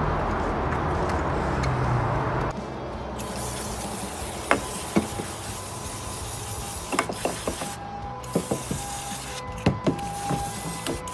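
A steady rushing noise that cuts off abruptly about two and a half seconds in. Then an aerosol can of parts cleaner sprays onto the kart engine in hissing bursts, with short pauses and sharp handling clicks, while a distant ambulance siren sounds its two-tone 'pee-poh' faintly.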